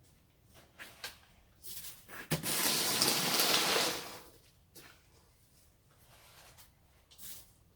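Snow shovel scraping and pushing icy, slushy snow along the driveway: a knock about two seconds in, then a loud, even scrape of about a second and a half, with lighter scuffs before and after.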